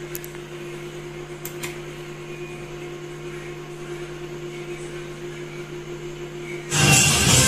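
Steady low electrical hum from a 5.1 home cinema amplifier and its speaker, with a few clicks as its controls are worked. Near the end, music starts playing loudly through it.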